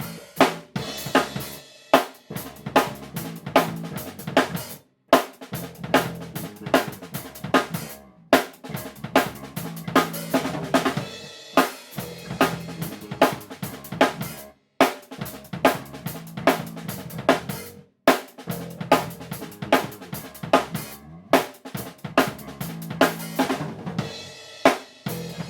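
Yamaha Tour Custom drum kit with a Ludwig LB400B 5x14" chrome-over-brass snare played blisteringly loud: a steady groove of kick, snare, hi-hat and cymbal hits, broken by a few sudden brief stops.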